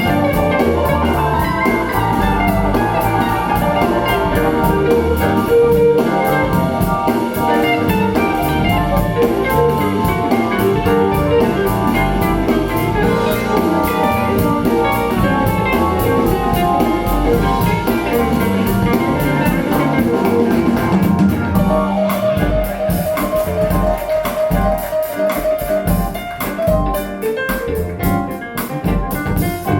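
Music played through a pair of KEF LS50 bookshelf speakers: a band track with guitar and drum kit. The arrangement thins out about two-thirds of the way through, leaving a short repeating note.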